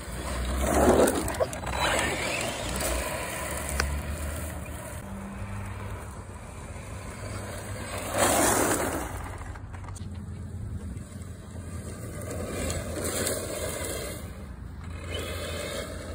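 ARRMA 4x4 3S BLX brushless electric RC short-course truck driving fast over grass and dirt, its motor whining and tyres scraping and throwing dirt. The noise swells loudest twice, about a second in and again about eight seconds in, as it passes close.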